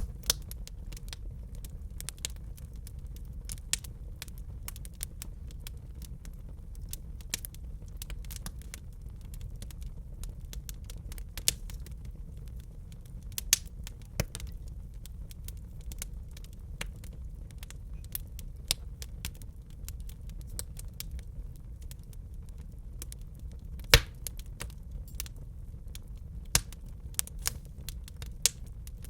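Wood fire in a fireplace crackling, with irregular sharp pops over a steady low rumble of burning; one louder pop about 24 seconds in.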